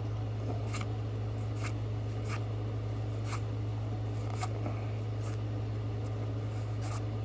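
Pokémon trading cards being flipped through one at a time, each card sliding off the stack with a short papery swish, about one a second. A steady low hum runs underneath.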